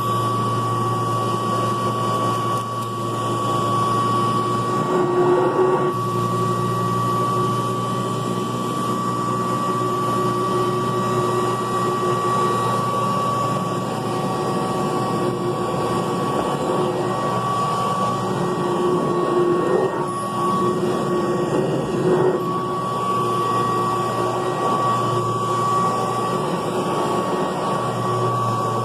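Kirby Classic III upright vacuum cleaner running steadily with a high motor whine, its low hum shifting slightly now and then as it is worked over the floor.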